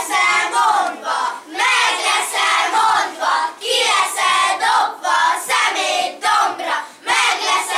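A group of children chanting in unison, in short loud phrases about a second each, one after another.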